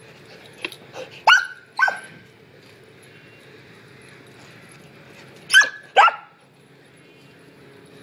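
Samoyed barking while running: a few short barks about one to two seconds in, then two loud barks in quick succession about five and a half seconds in.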